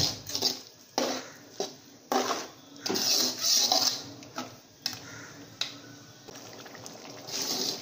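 Metal ladle scraping and knocking against the sides and bottom of a metal cooking pot while stirring a thick prawn masala gravy. The strokes come in quick succession for the first few seconds, go quieter with a couple of sharp taps, then start again near the end.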